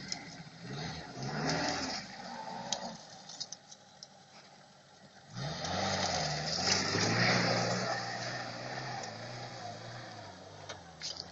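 UAZ-469 engine on a test run after repair, revving up and down twice. The second, louder run starts about five seconds in and settles into a steady drone.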